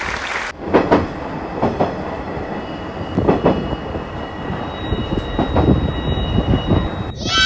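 Train running on rails: a steady rumble with irregular knocks of the wheels over rail joints and a faint steady whine. It starts abruptly about half a second in and cuts off just before the end.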